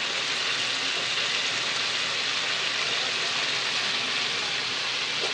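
Chicken pieces sizzling steadily in hot oil in a kadhai.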